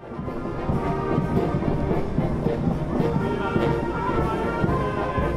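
Brass band music with drum hits, fading in over the first second.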